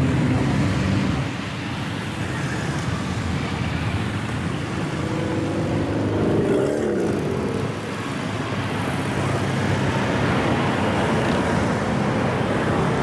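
A procession of motorcycles and quad bikes riding slowly past, their engines running steadily at low speed. About six seconds in, one engine's pitch rises and falls as it revs and passes close.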